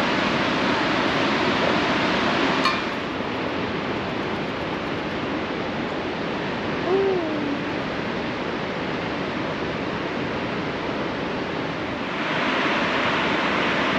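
Steady rush of a large waterfall, Upper Mesa Falls on the Henry's Fork. A sharp click comes about two and a half seconds in, after which the rush is duller and a little quieter. A short rising-and-falling tone sounds about halfway through, and the rush brightens again near the end.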